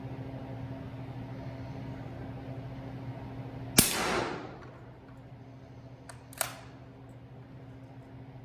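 A single suppressed shot from a short-barrelled 300 Blackout bolt-action rifle firing 220-grain subsonic rounds through a CGS Hyperion suppressor: a sharp report with a short fading tail. About two and a half seconds later come two lighter clicks in quick succession, over a steady low hum.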